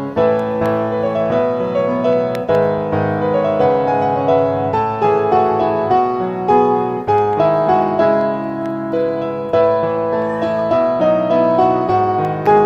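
Background piano music: a gentle melody of notes played one after another in an even flow.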